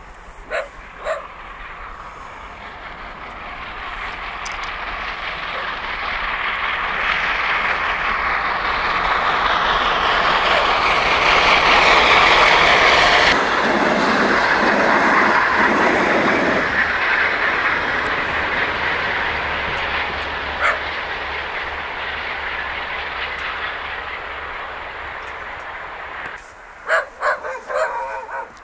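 141 R Mikado steam locomotive hauling a passenger train past, its exhaust and running noise swelling to a peak about halfway through and fading as it goes away. A few short sharp sounds, in a quick series near the end, sound over it at the start and near the end.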